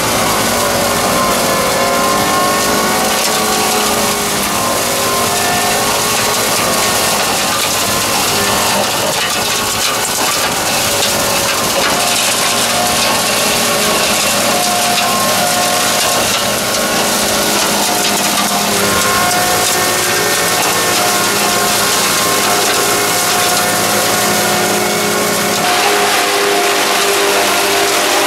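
Becx HS75HR hydraulic hedge-trimmer head running on a compact loader's arm as it cuts through a hedge, a steady mechanical whir and hiss over the loader's engine. The sound turns hissier a couple of seconds before the end.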